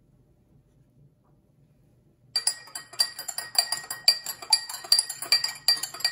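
Two metal spoons stirring sugar-water solutions in drinking glasses, clinking rapidly and repeatedly against the glass, starting a little over two seconds in.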